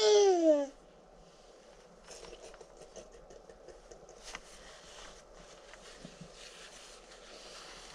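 A baby's short, loud cry that slides down in pitch right at the start, then faint rustling and small knocks of people shifting on the seats.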